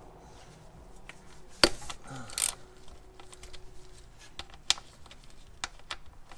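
Ratchet with an 8 mm hex bit working the oil drain plug loose on a Porsche 981 Boxster's oil pan: one sharp crack about one and a half seconds in, then scattered light metal clicks as the plug is turned out.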